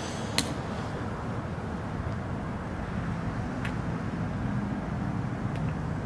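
Steady low outdoor rumble with a faint engine-like hum through it, and a light click about half a second in.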